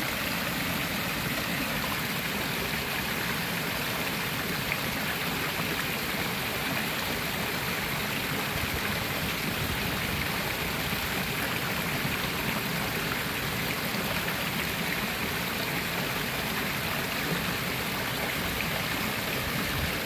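Small garden waterfall splashing steadily down stepped rocks into a pond, with rain falling on the water's surface.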